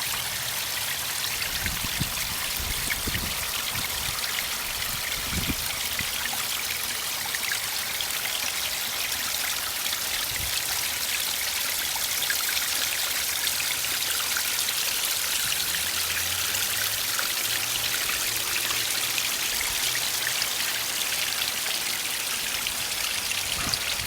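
Water from a small garden waterfall splashing and trickling steadily over rocks into a pond, with a few dull low thumps in the first six seconds.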